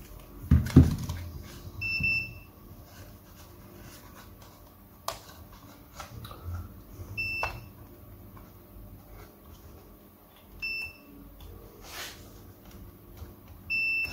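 Short, high electronic beeps from a multimeter, four of them a few seconds apart, while a laptop motherboard is checked for a short circuit; light clicks and taps in between, and two dull thumps about half a second in.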